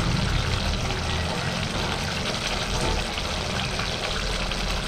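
Thick pepper-tamarind kuzhambu bubbling and sizzling in a kadai as a wooden spatula stirs through it. The oil has begun to separate at the surface, the sign that the gravy is nearly done.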